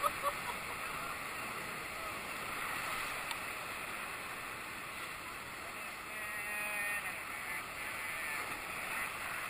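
Steady rushing of whitewater rapids around a raft, an even hiss of churning water.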